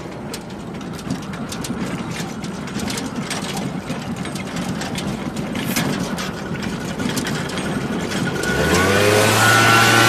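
Ryno Worx RY10 PRO push melter-applicator being wheeled along asphalt while it lays crack sealant: a steady rumble with many small clicks and rattles. About eight and a half seconds in, a louder humming tone with higher gliding tones joins in.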